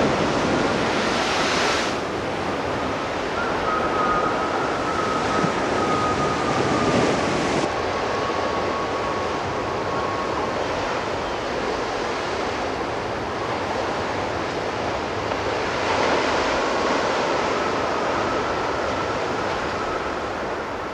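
Storm wind over a rough sea: breaking waves and wind making a steady rushing noise. A faint thin whistle drifts slightly lower in pitch over several seconds and comes back near the end.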